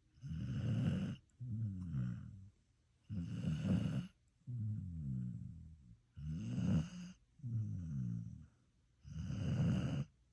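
A dog snoring in a regular rhythm, about one breath every three seconds. Each breath is a noisy snore on the in-breath followed by a lower, droning, pitched snore on the out-breath.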